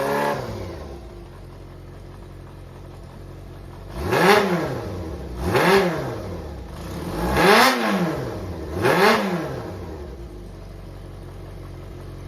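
Yamaha XJR400's air-cooled inline-four engine idling, then blipped four times, each rev rising and falling back to idle. The seller describes the engine as running with no abnormal noise.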